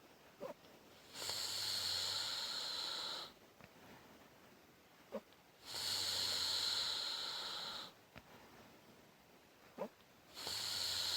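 A woman snoring in her sleep in a regular rhythm: three long, noisy snoring breaths about two seconds each, coming roughly every four and a half seconds. Between the breaths there is a short squeaky whistle.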